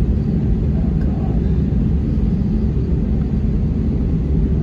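Steady low rumble inside the cabin of an Airbus A320-232, from its IAE V2500 jet engines running, with a few faint steady tones in the hum.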